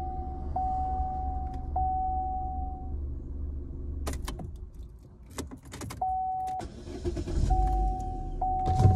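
Car warning chime: a steady high beep that restarts about once a second over the low hum of the running engine. Around four seconds in, key clicks and jangling come as the ignition is switched off and the engine hum drops away. About seven seconds in the engine starts again and the chime comes back. The driver isn't sure what is wrong with the car.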